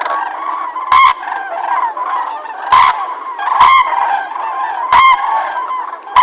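A flock of birds calling together: a constant dense chatter of many overlapping calls, with loud, sharp individual calls standing out about every second or so.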